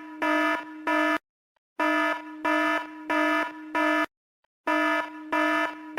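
Red-alert alarm sound effect: a harsh, buzzing electronic tone pulsing in quick groups of about four beeps, each group about two seconds long with a short silent gap between groups.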